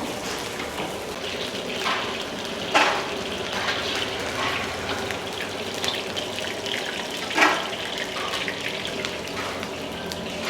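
Steady hissing from a hot wok, with a few sharp metal clanks of the ladle striking the wok. The loudest clanks come about three seconds in and again a little past seven seconds.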